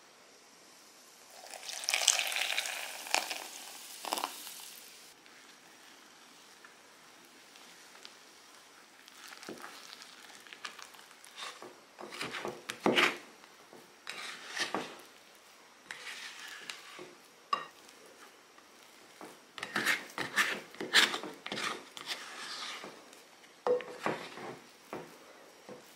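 Yeast water poured onto flour in a bowl, with a hissing splash a couple of seconds in. Then a spatula stirs and scrapes the sticky, shaggy pizza dough against the bowl in short, irregular strokes.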